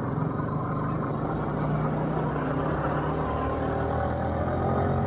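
Motorcycle engine running under way, its pitch beginning to rise near the end as the bike speeds up.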